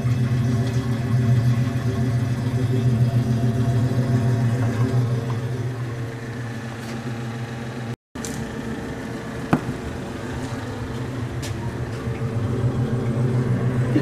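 1927–1929 Frigidaire refrigerator's motor and single-cylinder compressor running steadily with a low hum. The sound cuts out for an instant just past halfway, and a single click follows a moment later.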